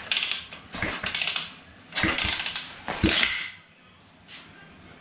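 Xpro X26 125cc pit bike being kick-started: four kicks about a second apart, each a short mechanical spin of the kickstart gearing turning the engine over. The engine turns over but does not fire.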